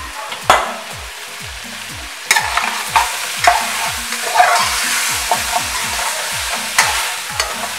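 Goat meat sizzling in oil in an aluminium caldero, nearly dry after its water has cooked off, while a metal spoon stirs and scrapes it and knocks against the pot. There is a single knock about half a second in, and the sizzle and scraping grow louder about two seconds in, once the stirring gets going.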